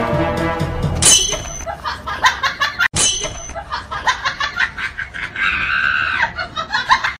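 Background music ends about a second in, then a laughing sound effect plays in quick repeated bursts. It cuts off briefly near three seconds and starts over.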